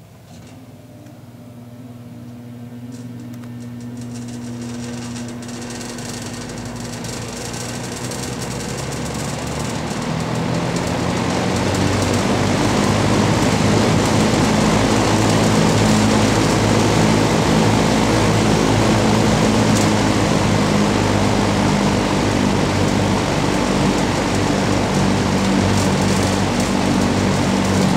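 Vintage Dominion model 2079 20-inch box fan with a 1.7 A Fasco motor starting up: the motor hum and the rush of air from the heavy blades build steadily over about ten seconds as it spins up to speed, then run steady. The motor is dirty and not yet oiled.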